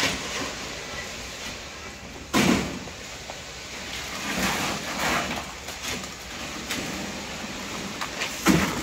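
Wet concrete coming out of the rubber end hose of a pump line onto rebar mesh, in surges, with two loud sudden thumps, one about two and a half seconds in and one near the end.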